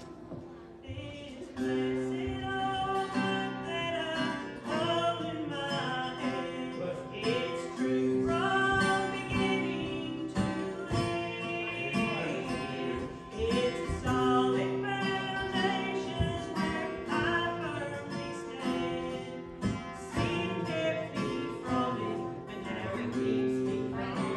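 Music: a voice singing over guitar accompaniment, with steady sustained notes and a regular rhythm.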